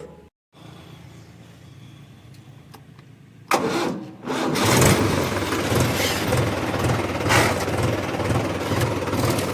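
Diesel tractor engine starting: it catches suddenly about three and a half seconds in, dips briefly, then settles into steady running with a regular low throb.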